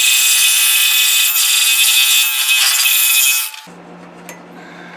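Scroll saw cutting through a sapele board, a loud, steady high-pitched sawing noise. About three and a half seconds in the cutting stops abruptly, leaving a faint low hum and a few light clicks.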